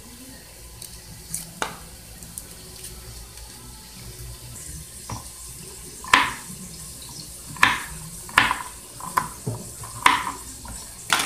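Knife cutting garlic cloves on a wooden cutting board: a run of sharp knocks, a few light ones early and louder ones about once a second in the second half, over a steady faint hiss.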